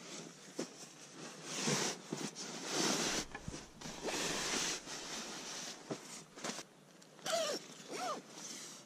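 Sleeping bag and blanket rustling and swishing as they are pulled out and spread flat by hand, with two short falling squeaks near the end.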